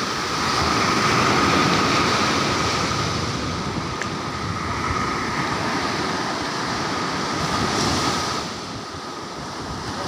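Ocean surf breaking and washing up a sandy beach: a steady rush of water that swells about a second in and eases off near the end, with a thin steady high tone underneath.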